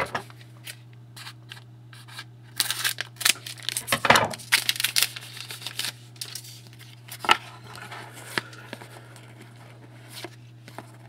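Trading card pack wrapper being torn open and crinkled, with cards handled, in bursts of crinkling and tearing from about two to five seconds in and a sharp click a couple of seconds later. A steady low hum sits underneath.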